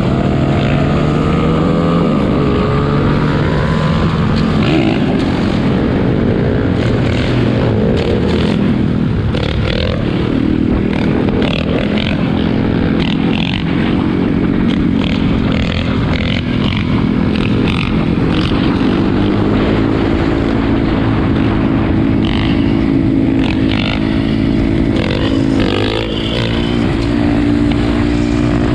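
Several four-wheeler (ATV) engines running and revving at once, their pitches rising and falling over one another, with short sharp cracks now and then.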